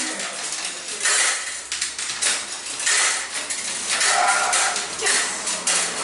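Handling noise at a front-loading laundrette washing machine: repeated clattering and rustling, about one burst a second, as the machine is loaded and worked.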